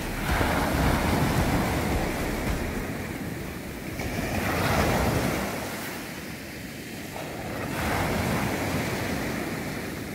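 Sea surf breaking and washing up a sandy beach, swelling and fading in three slow surges about four seconds apart.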